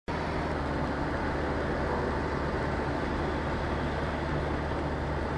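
Steady cabin noise of a car driving on a wet road: a low engine hum under the hiss of tyres on the wet surface.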